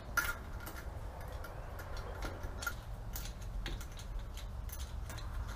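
Scattered light metal clicks and taps as parts are handled and loosened by hand on top of a supercharged V8 engine.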